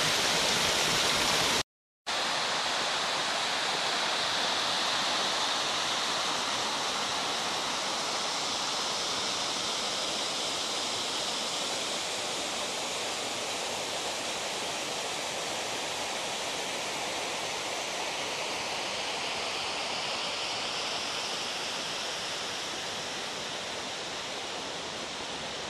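Steady rushing of a waterfall and fast mountain stream, an even roar of falling water. It cuts out to silence for a moment about two seconds in, then slowly grows fainter toward the end.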